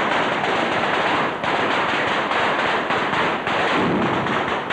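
Fireworks showering sparks: a dense, continuous crackle of many rapid small bangs.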